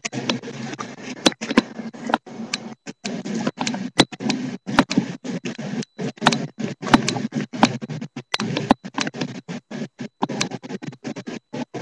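Outdoor noise that keeps cutting in and out, broken by frequent short dropouts and sharp clicks several times a second.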